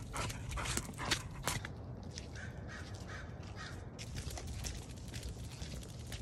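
A crow cawing four or five times in quick succession about two seconds in, over a steady low rumble. A few sharp clicks come in the first second and a half.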